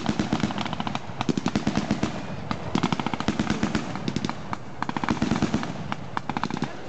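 Machine guns firing repeated bursts of rapid automatic fire, the bursts following one another all through.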